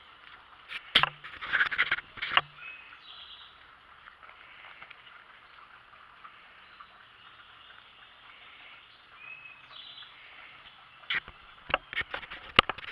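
Two clusters of sharp clicks and clatter, about a second in and again near the end, over a low steady outdoor background with a couple of brief high chirps.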